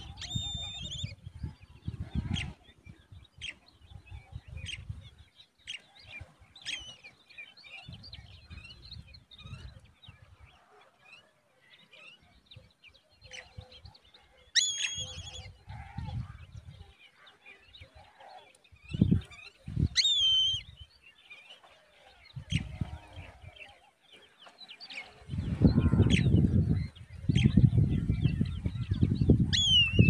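Short high chirps and a few longer, thin calls that bend down in pitch, from a downy eagle chick and the birds around its nest. Beneath them, a low rumbling noise comes and goes in gusts and is loudest near the end.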